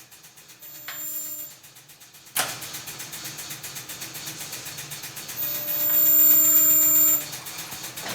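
Inverter resistance spot welder at work. A short hum comes about a second in, then a sudden hiss starts and carries on. Near the middle a louder, steady hum lasts almost two seconds, then drops off.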